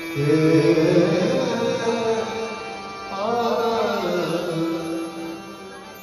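Devotional aarti singing by a male voice, amplified through loudspeakers, with a harmonium holding steady notes and tabla beneath. It comes in two sung phrases, the second starting about three seconds in, then fades toward the end.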